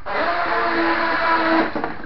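Toy RC racing boat's small electric motor running flat out on an upgraded 2S lithium battery pack: a steady whine with the hiss of churned water, cutting off shortly before the end.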